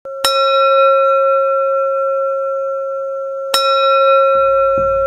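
A bell-like instrument struck twice, each stroke ringing on at length with shimmering overtones. About four seconds in, a steady drum beat of low thumps starts, roughly two to three strokes a second.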